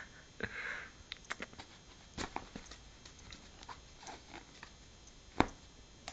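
Scattered light taps and scuffs of a young cat's paws and claws as it pounces on a feather, with one sharper knock about five and a half seconds in.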